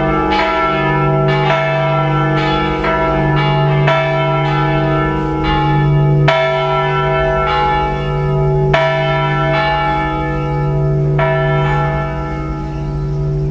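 Church bells swinging and ringing together in a full peal, strokes overlapping at roughly one a second over a steady low hum from the largest bell. Near the end the strokes stop and the ringing dies away.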